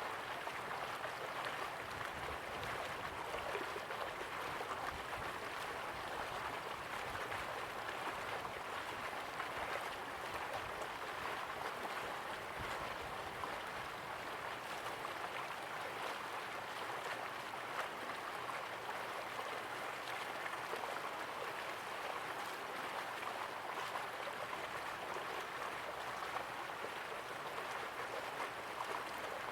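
Steady rushing of flowing river water, an even unbroken wash without pauses.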